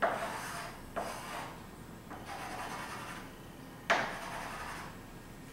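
Chalk drawing on a chalkboard: four strokes, each starting with a tap as the chalk meets the board and trailing off in a scratchy rub. The loudest comes a little before four seconds in.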